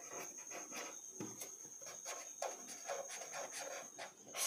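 Felt-tip marker scratching across paper in a run of short, quick strokes as letters are written by hand.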